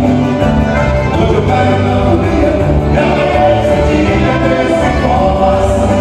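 Live band music: a man singing over accordion, electric guitar and keyboard, loud and continuous.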